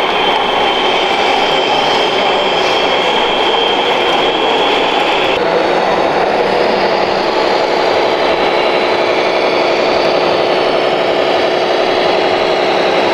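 Steady mechanical running of radio-controlled model trucks and construction machines. A high steady whine cuts off abruptly about five seconds in, and a lower, even running sound carries on.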